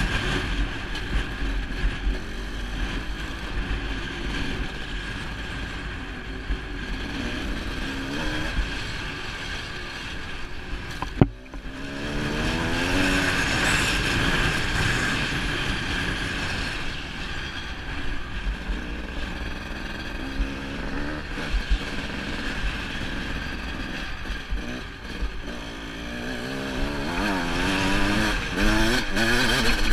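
Dirt bike engine running under load, its pitch rising and falling repeatedly as the throttle is opened and eased off. There is one sharp knock about eleven seconds in.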